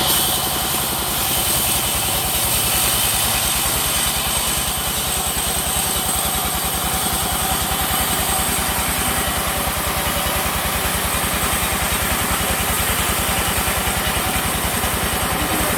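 Sawmill machinery running steadily: an engine with a fast, even low pulse and a constant high whine over it.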